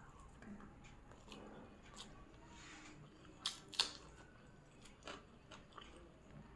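Chewing and mouth sounds of a person eating biryani, with scattered sharp clicks. The loudest are two close together about three and a half seconds in.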